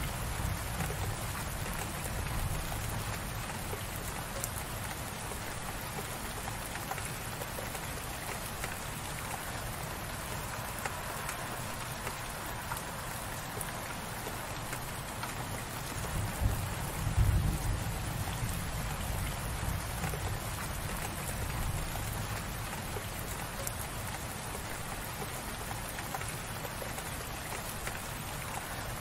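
Gentle, light rain falling steadily, an even patter of drops, with a low rumble underneath that swells briefly a little past halfway.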